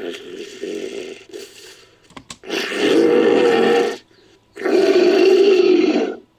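Made-up Shringasaurus creature sound effects: a quieter grunting call fades out, then after a short click come two loud roars, each about a second and a half long, with a brief pause between them.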